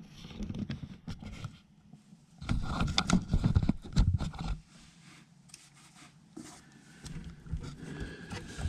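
Hands-on handling noise: scraping and rubbing with scattered clicks and knocks, busiest from about two and a half to four and a half seconds in, as wires and connectors are worked back onto a furnace control board.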